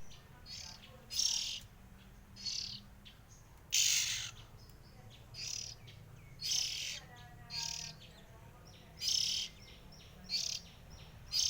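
Oriental magpie-robins (kacer) calling with short, rough, high-pitched chirps, repeated about once a second, over a low steady hum.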